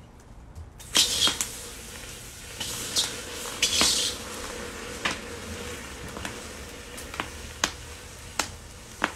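Hot mustard oil sizzling and spitting in a pan: a hiss that starts suddenly about a second in and swells a few times, with sharp pops every second or so.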